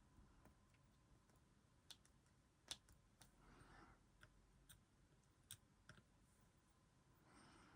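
Near silence, broken by a few faint, sharp clicks spread unevenly and two soft rustles, one mid-way and one near the end: small objects being handled close to the microphone.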